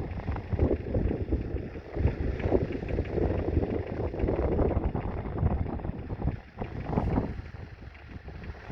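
1966 McCormick 434's 2.5-litre four-cylinder diesel engine running as the tractor works the plough, with gusty wind buffeting the microphone, the sound swelling and dipping unevenly.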